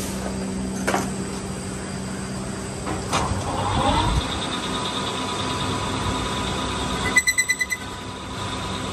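Engine lathe running with a Yamaha Y15 motorcycle sport rim spinning in its chuck as a sprocket seat is machined: a steady mechanical hum with a high steady whine. A couple of light clicks come in the first few seconds, and a quick rattle of about eight sharp pulses comes about seven seconds in.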